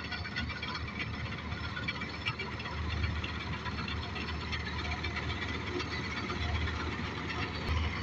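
Hind 999 combine harvester running under load while harvesting a standing crop: a steady engine drone with a low rumble and the clatter of the working machinery.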